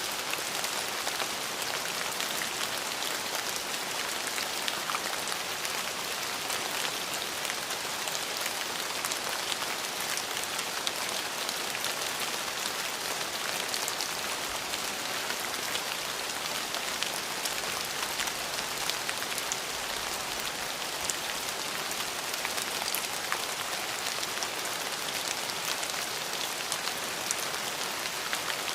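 Steady rain falling, a dense even hiss with many fine drop patters throughout.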